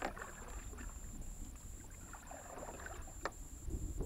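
Handling noises from a kayak as a caught sunfish is threaded onto a stringer cord: rustling with two sharp clicks, one at the start and one about three seconds in, over a low wind rumble on the microphone. A steady high-pitched tone pulses about three times a second throughout.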